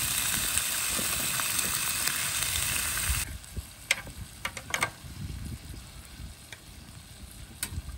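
Fish pieces sizzling in hot oil in a grill pan. About three seconds in, the sizzle drops to a quieter hiss, broken by a few sharp clicks of metal tongs against the fish and pan as the pieces are turned.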